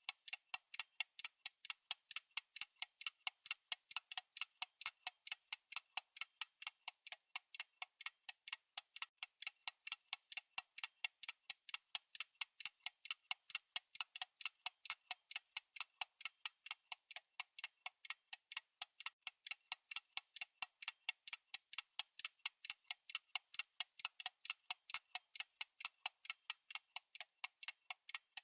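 Clock-style tick sound effect of a countdown timer: light, sharp ticks repeating evenly, several a second, without a break.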